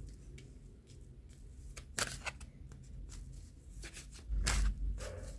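Oracle cards handled on a table: a few soft clicks of card stock about two seconds in, and a low bump about four and a half seconds in.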